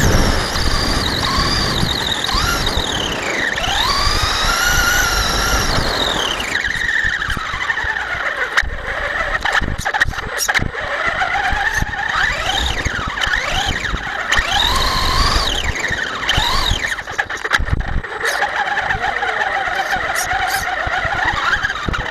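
Electric motor of a Traxxas Stampede RC monster truck whining, rising and falling in pitch again and again as the truck speeds up and slows down, with scattered knocks from the running gear.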